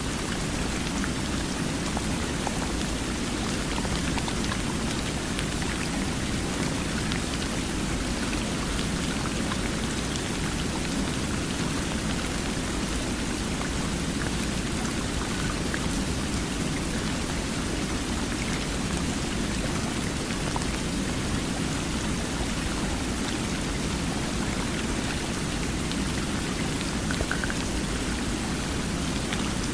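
Water flowing steadily: a continuous, even rush with fine splashing that does not change.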